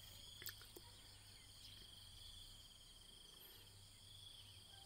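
Near silence: a faint, steady insect trill over a low hum, with one small tick about half a second in.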